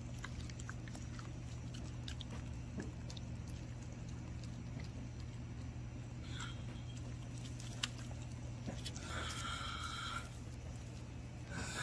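A dog chewing and mouthing pieces of gompi seaweed from a hand: faint, scattered wet clicks and smacks over a steady low hum. A short high-pitched sound comes about nine seconds in and again near the end.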